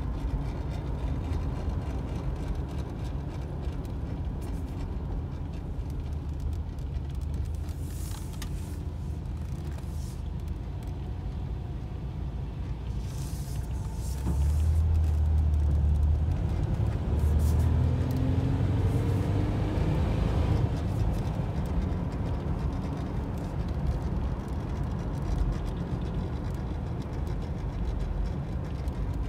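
Cabin sound of a 1985 Oldsmobile Cutlass Supreme with its 3.8-litre V6 under way: a steady low engine and road rumble. About fifteen seconds in it grows louder and the engine note rises for several seconds as the car pulls harder, then it settles back to a steady cruise.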